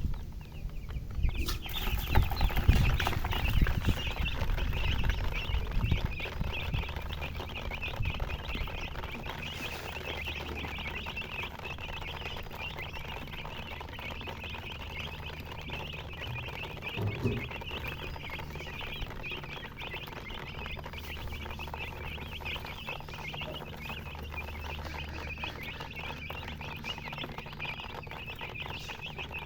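A brood of baby chicks peeping continuously, many high, short chirps overlapping, starting about a second and a half in. Low knocks and rumbling during the first few seconds.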